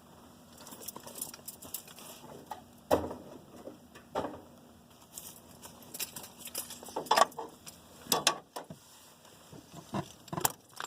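Handling noise from plastic parts and wiring behind a truck's dash panel: scattered clicks, taps and light rattles, with a few sharper knocks.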